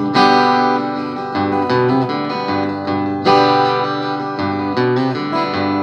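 Acoustic guitar strumming chords, a new strum every second or so with each chord left to ring.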